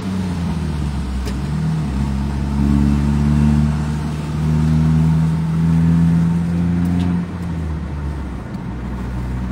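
Car engine and road noise inside the cabin of a moving car, a steady low hum whose engine note steps up and down a few times as the speed changes.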